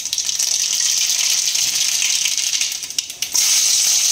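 Mustard seeds crackling and spluttering in hot oil in an aluminium kadai: a steady sizzle full of tiny pops. A little over three seconds in it dips briefly, then sizzles louder as garlic pieces fry in the oil.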